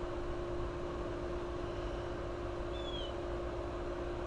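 Steady electrical hum with one constant tone from a Carrier Greenspeed 25VNA060 inverter heat pump outdoor unit called for cooling, its compressor not running. A faint short chirp about three seconds in.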